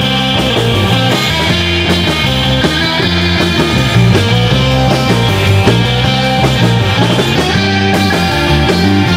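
Live surf-rock instrumental played by a three-piece band: electric guitar through a Vox amp, electric bass and a drum kit playing loud and steady.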